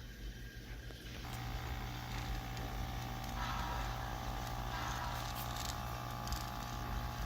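HO scale model train running, with a steady motor hum and whine that sets in about a second in and light clicking along the track.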